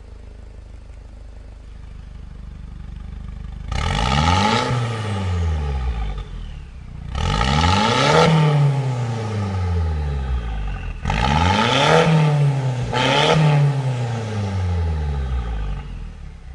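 Mercedes-Benz C-Class engine heard through a Fi Exhaust valved exhaust with the valves open. It idles, then from about four seconds in is blipped four times, each rev climbing in pitch and falling back toward idle.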